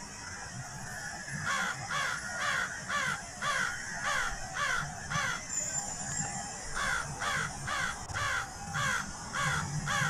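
Crows cawing: a regular run of harsh caws, each falling in pitch, about two a second, with a break of a second or so in the middle.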